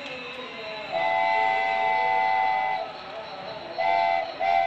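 Railking toy steam locomotive's electronic whistle sounding a chord-like toot of several close tones: one long toot of about two seconds starting about a second in, then a short toot and the start of another near the end. Between the toots, the steady running noise of the toy train on its plastic track.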